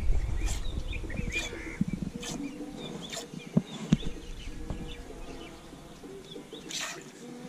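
A cow being milked by hand into a small steel bowl: milk squirting in short spurts about once a second, pausing midway and then coming again near the end. Small birds chirp in the background.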